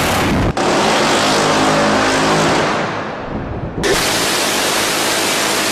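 Phalanx CIWS 20 mm six-barrel Gatling gun firing long continuous bursts, so fast that the shots run together into one dense buzz. One burst is cut off about half a second in, the next fades away near three seconds, and another starts sharply near four seconds.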